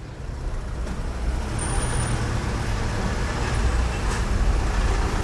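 Car driving slowly, its engine and road noise heard from inside the cabin as a steady low rumble that grows gradually louder.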